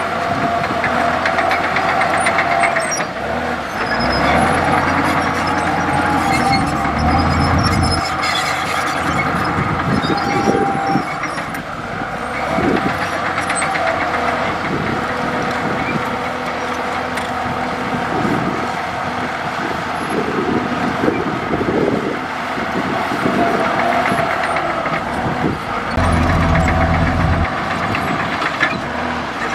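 Komatsu D65E crawler bulldozer working: its diesel engine runs steadily under load, with a steady high metallic squeal and repeated clanks from the steel tracks. The low engine note swells twice, briefly near the start and again near the end.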